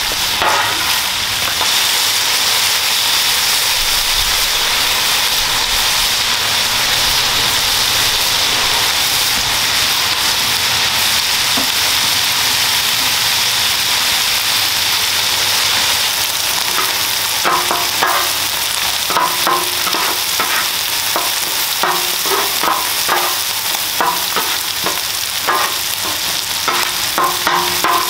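Ground beef, red onions and chicken sizzling steadily on a hot flat-top griddle. In the second half, quick repeated scrapes and chops of spatulas on the griddle plate join the sizzle.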